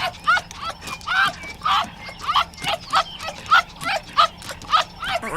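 A dog giving short, high-pitched yelps, repeated about twice a second, each rising and falling in pitch.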